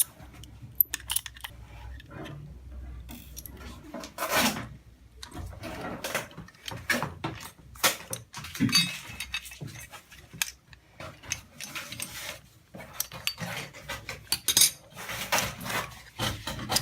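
Irregular small clicks and clinks of tools, screws and drone parts being handled on a work surface while a DJI Phantom 3's gimbal is taken apart.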